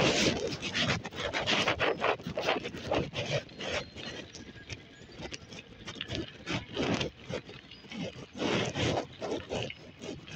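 Wind buffeting and rubbing on the microphone of a phone carried on a moving e-bike, in irregular gusts. It is loud at first, quieter in the middle and picks up again near the end.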